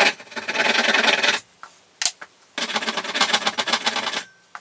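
Fine-toothed hand saw cutting through wooden dowels in a birch plywood frame, a dense rasping of saw strokes. The sawing stops about a second and a half in, a short click follows, and a second run of sawing goes on until near the end.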